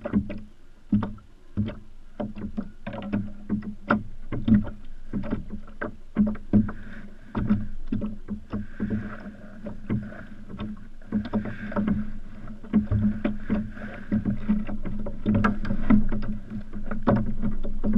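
Hobie fishing kayak on the water: water slapping against the plastic hull with frequent irregular knocks, a few a second, over a steady low hum.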